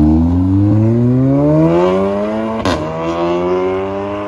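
Tuned hybrid-turbo VW Golf R MK7's turbocharged 2.0-litre four-cylinder accelerating hard away, its note rising steadily through a gear. About two-thirds of the way in comes a sharp crack as it upshifts and the pitch drops, then it climbs again.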